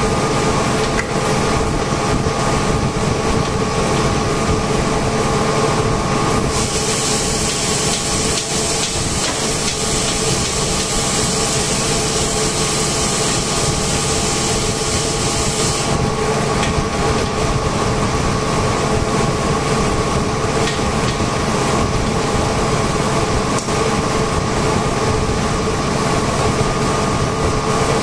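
Air compressors running steadily, a loud even machine drone with a steady multi-tone whine. A high hiss joins in about six seconds in and stops about ten seconds later.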